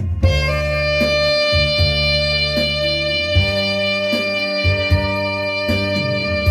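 Saxophone holding one long note over an electronic accompaniment backing track with a bass line and a steady beat.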